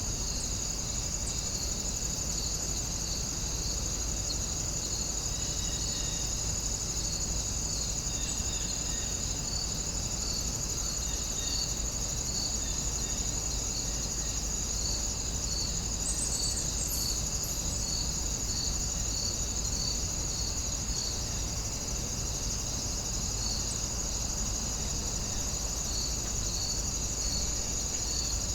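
Insect chorus: a steady high trill with a second chirp repeating about once a second, over a steady low rumble.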